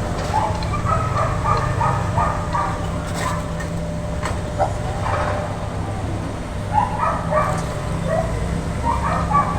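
Steady low engine rumble, with a dog barking in several quick runs of short barks, near the start, about seven seconds in and again at the end.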